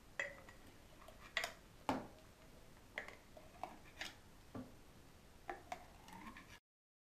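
Metal ladle knocking and scraping against the side of an enamel basin while scooping hot strawberry jam: about ten light, irregular clinks, several with a short ring. The sound cuts off suddenly near the end.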